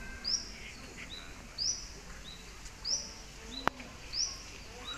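A bird repeating a high two-note call about every second and a bit: a short lower note, then a louder note sweeping upward. A single sharp click sounds about three and a half seconds in.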